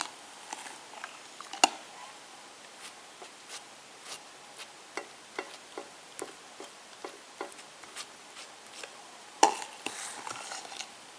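Light, irregular clicks and taps of a knife and plate during food preparation, with louder knocks about one and a half seconds in and near the end.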